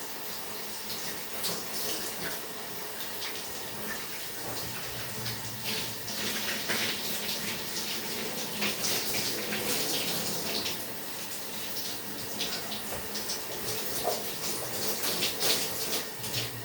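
Shower running, its spray splashing unevenly, busier and splashier through the middle and again near the end.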